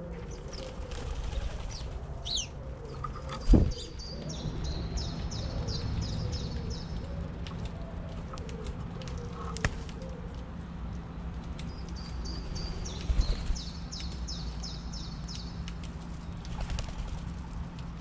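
White-winged doves feeding on the ground, with a sharp wing flap a few seconds in and another short flurry of wing sounds about thirteen seconds in. A songbird sings two runs of quick high chirps, about three a second.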